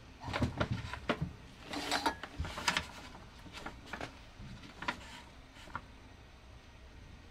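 Small clicks, taps and rattles of paintbrushes and painting supplies being handled on a desk: about a dozen light knocks in the first six seconds, busiest around two to three seconds in, then quiet.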